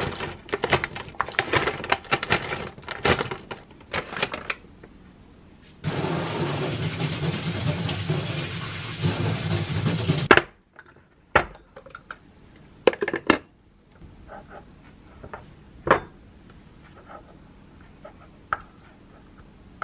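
Frozen blueberries pattering and rattling as they pour into a stainless steel mesh sieve, then a tap running water over them for about four seconds before it is shut off. After that come a few sharp knocks and the soft scrape and clink of a spoon dishing thick Greek yogurt into glass bowls.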